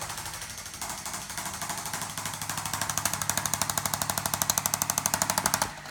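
ArthroStim handheld chiropractic adjusting instrument tapping on the back in a rapid, even stream of impulses, fourteen a second. The taps grow louder about two seconds in and stop for a moment near the end.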